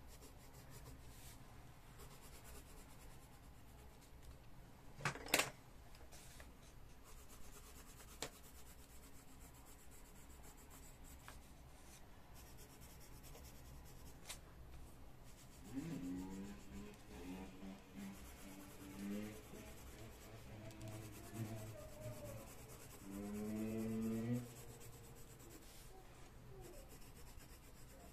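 Coloured pencil rubbing softly on the paper of a colouring book as a child colours, with a sharp knock about five seconds in. Across the second half comes a voice without words, in several short phrases.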